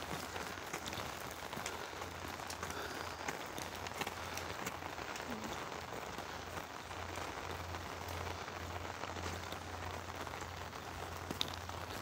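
Steady heavy rain, with scattered sharp drop hits on an umbrella held close overhead, over a low steady rumble.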